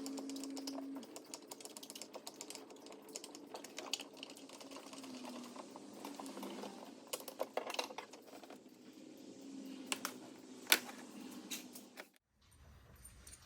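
Hand ratchet clicking in quick, irregular runs, with a few sharper metal clicks of tools among them; it cuts off suddenly near the end.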